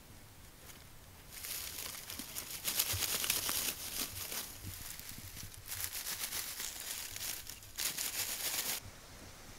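Dry grass stalks being pulled and bunched by hand: a crackling, tearing rustle in two long spells, starting about a second and a half in and stopping shortly before the end.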